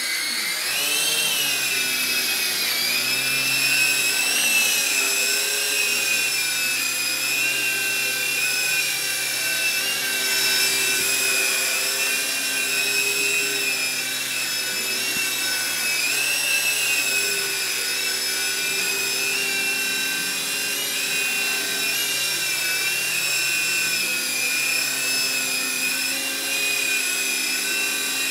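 Electric motor and rotor whine of a small T642C toy RC helicopter in flight. The pitch climbs sharply about a second in, then keeps wavering up and down.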